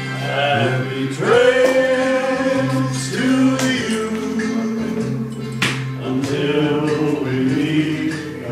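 Men singing a slow song over held keyboard chords, with a sharp knock about five and a half seconds in.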